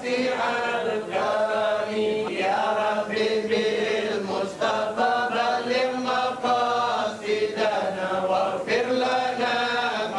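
Melodic vocal chanting in long, drawn-out, wavering phrases, broken by short pauses every couple of seconds.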